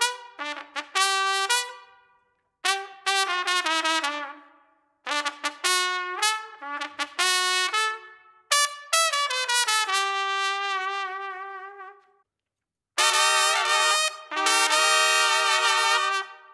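A trumpet played solo in short melodic phrases, each ending in a ringing fade with a brief pause between them, then louder sustained notes in the last few seconds.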